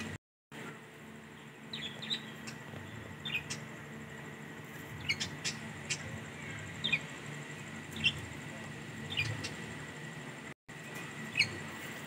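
Budgerigars chirping: short, sharp chirps every half second to a second, over a faint steady hum.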